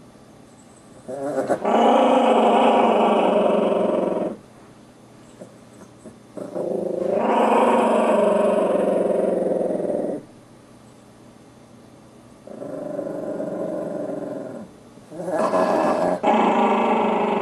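Small dog growling in four long, drawn-out growls with short pauses between, the third one quieter, as hands hold her to lift her: a warning that she does not want to be picked up.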